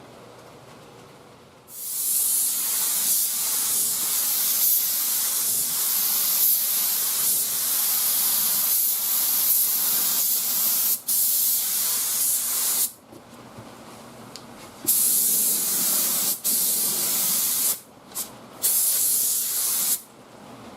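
Air spray gun spraying lacquer primer surfacer. One long pass of about eleven seconds with a brief break, then a pause and several shorter passes near the end.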